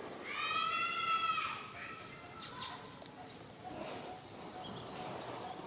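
A macaque gives one long, high call that arches slightly in pitch near the start, followed by a few short high clicks.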